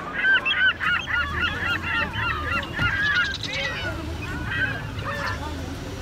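A flock of birds calling together in many short, overlapping honking calls. The calls are busiest in the first three or four seconds and thin out toward the end.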